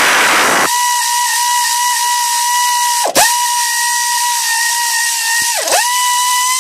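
Pneumatic air ratchet running with a steady high whine over a hiss of air, driving a stud-puller tool that draws a pressed-in rocker stud out of a small-block Chevy 350 head. It is rougher and noisier for the first moment, and its pitch dips briefly twice, about three seconds in and near the end.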